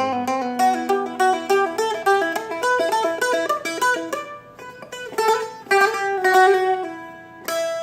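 Seagull Merlin, a four-string dulcimer-style fretted instrument, playing a picked melody riff in quick single plucked notes. There is a brief pause just after the middle, and near the end one note is struck and left ringing.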